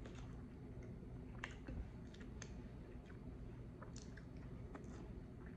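A person chewing a mouthful of boiled egg and keto bread, with scattered faint mouth clicks and lip smacks.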